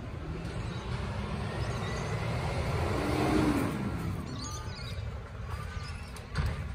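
Volvo garbage truck's diesel engine running some way up the street as a low, steady rumble, swelling to its loudest about three seconds in. Birds chirp several times in the second half, and there is a sharp knock near the end.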